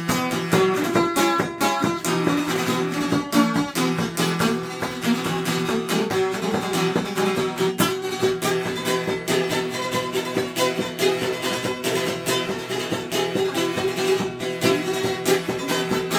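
Šargija, a long-necked Bosnian lute, played solo with fast, steady picking: a kolo dance tune over steady ringing drone notes.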